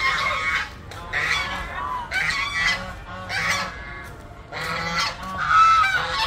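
White domestic geese honking: about six harsh calls in a row, roughly one a second, the loudest near the end.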